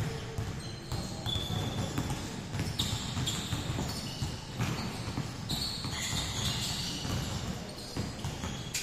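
Many basketballs being dribbled at once on a hardwood court, irregular overlapping bounces echoing in a large gym, with now and then short high sneaker squeaks.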